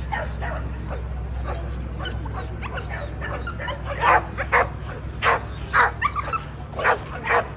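Pit bull dogs barking: scattered faint yips at first, then loud sharp barks about twice a second from about four seconds in, over a steady low hum.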